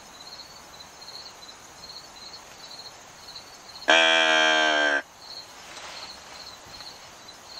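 A mouth-blown deer call sounds one long, steady note of about a second, about four seconds in, calling to an approaching buck. Insects chirp in an even, repeating rhythm throughout.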